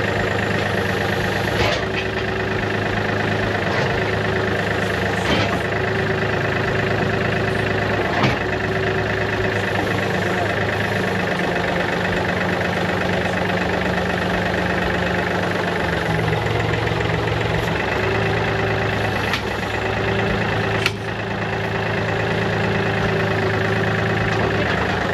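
John Deere 4410 compact tractor's diesel engine running steadily, its pitch shifting a few times as the engine speed changes, with a few brief knocks.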